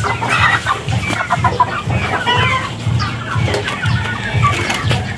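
A flock of chickens clucking and calling, many short overlapping calls with no pause.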